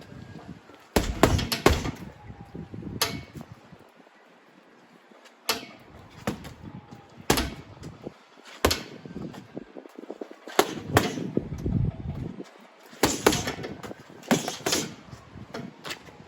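Boxing gloves striking a heavy punching bag: sharp thuds, singly and in quick combinations of two to four, with pauses of a second or two between them.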